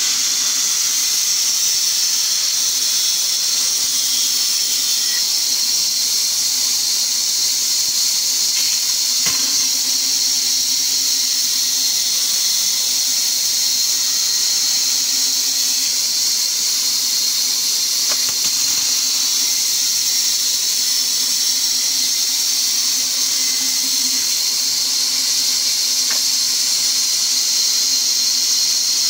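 Band saw running steadily, its blade cutting lengthwise through a log with a high, even hiss.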